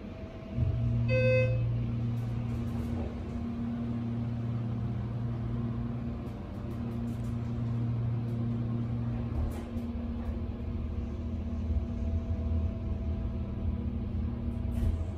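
Schindler 330A hydraulic elevator's pump motor humming steadily as the car rises one floor, the hum changing in tone about two-thirds of the way through. A short electronic chime sounds about a second in.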